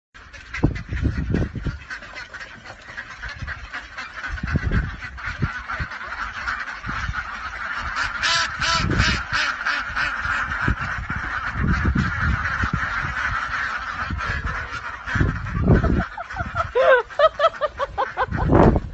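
Honking animal calls, with a pitched call near the end, over a steady din and repeated low thumps.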